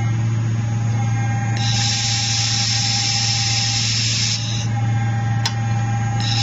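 Handheld fiber laser welding machine running with a steady electrical buzz and hum. A higher hiss switches on about one and a half seconds in, stops about three seconds later and starts again near the end, and there is a single sharp click shortly before that.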